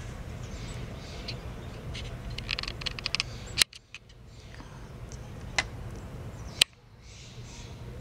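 Outdoor background noise with a steady low rumble and a run of faint ticks. Sharp clicks come about three and a half and six and a half seconds in, each followed by a brief dip in sound where the recording is cut.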